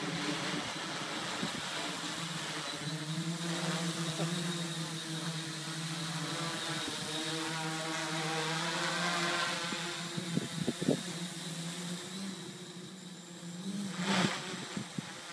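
Hobby quadcopter's electric motors and propellers buzzing in flight, the pitch wavering as it manoeuvres and loudest near the middle as it hovers close. Brief bursts of wind noise hit the microphone about ten seconds in and again near the end.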